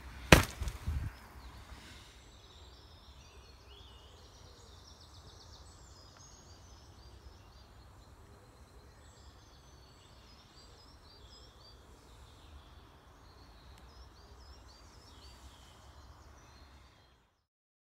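Faint birdsong in woodland, many short chirps and whistles from several birds, over a low steady rumble. A single loud knock sounds just at the start, and everything cuts off near the end.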